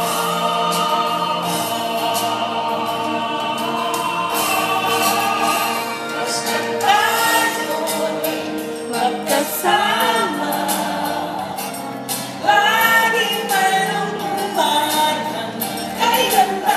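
Mixed choir singing: long held chords at first, then from about seven seconds in a livelier passage with voices gliding up and down.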